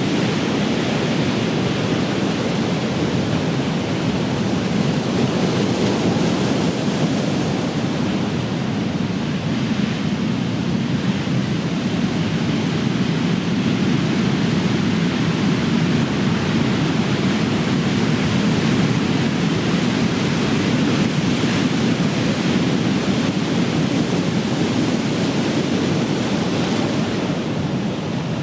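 Ocean surf: large waves breaking and washing in a continuous steady rush, with no single crash standing out.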